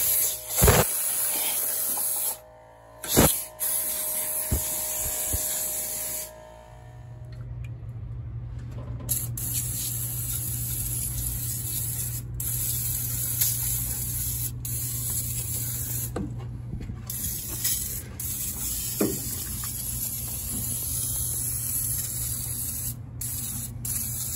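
Aerosol engine degreaser spraying in long hisses, cutting out briefly a few times as the nozzle is let go. A steady low hum joins about six seconds in.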